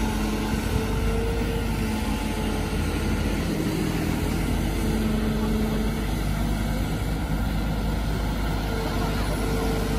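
Kobelco SK200 hydraulic excavator's diesel engine running steadily while the bucket digs mud in a ditch, with a pitched hum that rises out of the drone and fades several times.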